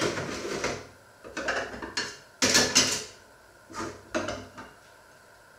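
Crockery being handled in a kitchen, clattering in about five short bursts.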